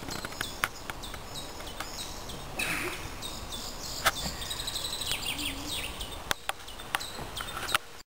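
Small songbirds singing, many short high chirps and trills overlapping, with a few sharp clicks scattered through; the sound cuts off suddenly just before the end.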